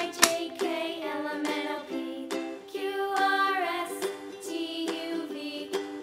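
Cheerful background music for a children's video, playing steadily with a repeating melody.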